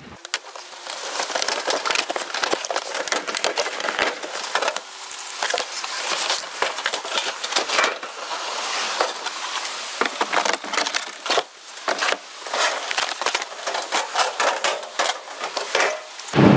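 Cardboard shipping box being opened and pulled off the smoker, in sped-up footage: a dense run of crackling, scraping and tapping that goes on without a break.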